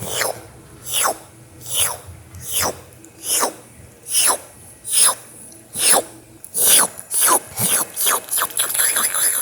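Wet licking sounds from a person's tongue and mouth, as if licking a lollipop or ice cream cone. Each lick is a slurp that sweeps down in pitch, about one a second at first, then quicker and closer together from about seven seconds in.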